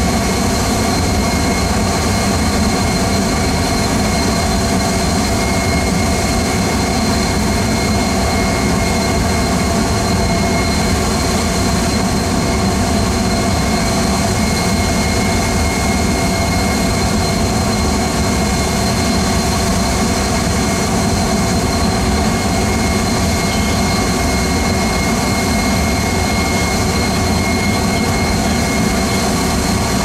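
Cessna Citation Sovereign's twin Pratt & Whitney Canada PW306C turbofans running steadily at low power on the runway: a constant high whine over a low rumble, with no spool-up.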